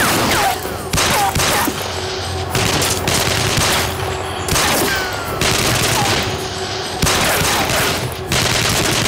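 Sustained, rapid gunfire from pistols and a rifle in a shootout, shot after shot without a break, with short falling whines among the shots.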